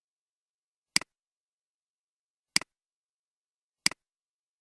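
Three separate sharp clicks of a computer mouse button, each a quick press-and-release, with silence between them.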